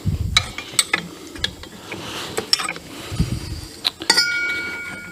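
Metal parts of a lawn tractor's mower-deck pulley assembly being handled and fitted: a string of sharp metallic clicks and clinks with a couple of dull knocks. Near the end there is a short, steady ringing tone.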